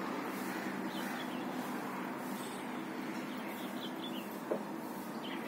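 Small birds chirping faintly and intermittently over a steady outdoor background hum. One brief sharp sound about four and a half seconds in is the loudest moment.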